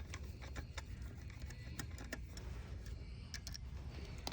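Faint scattered clicks and light taps of small chainsaw parts and screws being handled, over a low steady hum.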